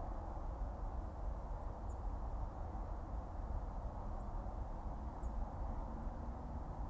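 Steady low rumble of a car's engine and tyres on the road, heard from inside the cabin while driving, with a few faint high chirps.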